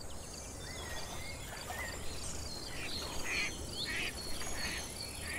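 Nature ambience of birds calling over the steady, pulsing chirr of insects: short whistled bird notes early on, then a run of harsher bird calls in the second half.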